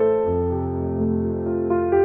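Background music: slow, soft piano with held notes, a new note or chord coming in every half second or so.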